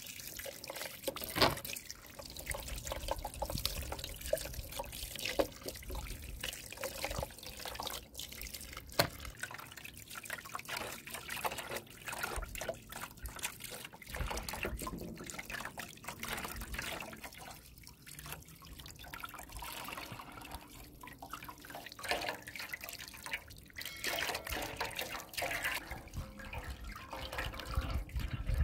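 Water pouring from a hose into a metal basin of raw chicken pieces, splashing and trickling as hands rub and rinse the meat, with a few sharper splashes now and then.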